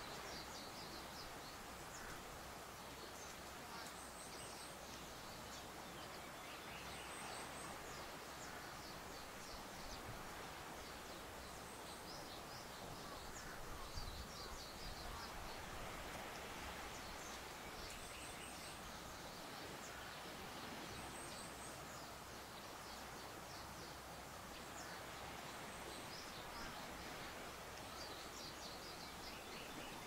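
Faint outdoor ambience of wind stirring tall grass, with short clusters of thin, high bird calls repeating every few seconds. A brief gust of wind comes about halfway through.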